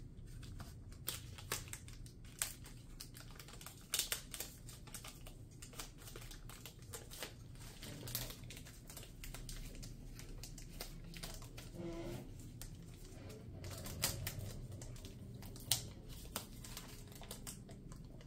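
Plastic protective wrap being peeled and unwrapped by hand, crinkling with many irregular small crackles and clicks.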